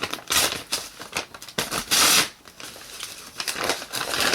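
Packaging being worked open by hand: crinkling, rustling and tearing in short bursts, with a longer rip about two seconds in and a run of quick rustles near the end.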